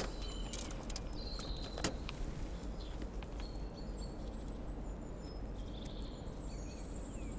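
Steady low outdoor rumble with small birds chirping high and thin throughout, and a couple of faint clicks in the first two seconds.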